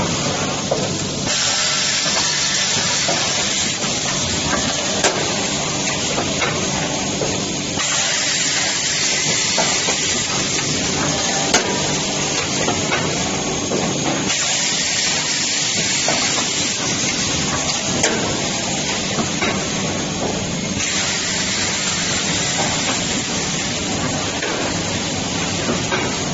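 Automatic blister-card welding, cutting and sealing machine running: a steady mechanical hum with hissing that grows and fades in a cycle of about six and a half seconds. A single sharp click comes once in each cycle, three times in all.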